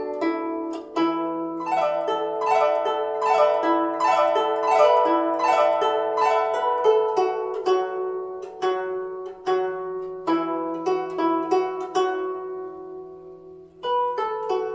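Guzheng (Chinese zither) played solo: a quick, flowing run of plucked notes. Near the end the notes are left to ring and fade, then the plucking resumes.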